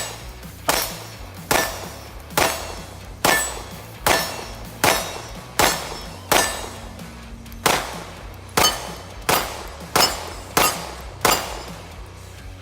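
CZ P-10 C pistol fired in a steady string of about fourteen shots, roughly one every 0.8 seconds, the pace quickening slightly over the last few shots, each report ringing out briefly.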